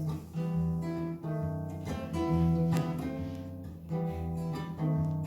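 Acoustic guitar strumming chords in a steady rhythm, an instrumental passage of the song with no singing.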